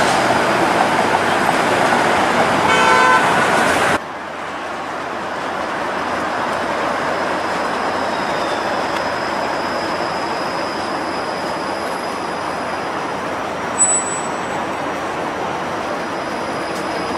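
Downtown street traffic noise with a short horn toot about three seconds in, then a Toronto Flexity Outlook streetcar running steadily past on its track, with a brief high-pitched squeal about three-quarters of the way through.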